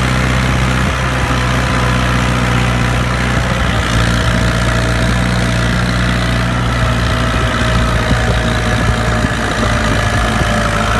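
Massey Ferguson 178 tractor's four-cylinder Perkins diesel engine running steadily at full throttle under the load of ploughing.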